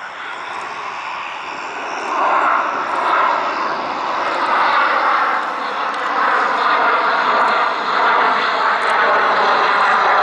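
MiG-29M2 fighter jet's twin jet engines, a loud rushing noise with faint shifting tones that swells about two seconds in and stays loud as the jet climbs in a display manoeuvre.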